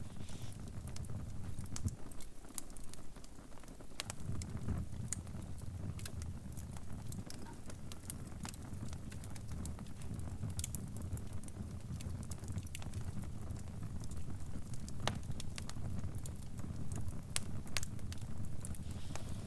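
Fire crackling: irregular sharp pops and snaps over a low, steady rumble.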